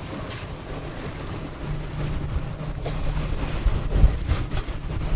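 Wind rumbling on the microphone aboard a boat at sea, over a low steady hum, with louder gusts about two and four seconds in.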